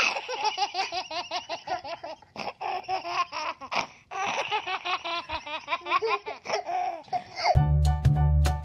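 A baby laughing in long runs of short, choppy laugh pulses with a brief catch of breath about four seconds in. About seven and a half seconds in, the laughter cuts off and music with a heavy bass beat starts.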